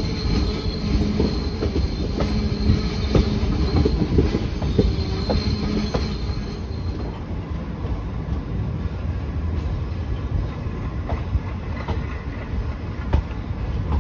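Passenger train coaches rolling slowly through a station yard: a steady rumble with wheels clicking irregularly over rail joints and points, and a thin wheel squeal. The squeal and most of the clicking die away about halfway through, leaving a softer rumble with an occasional click.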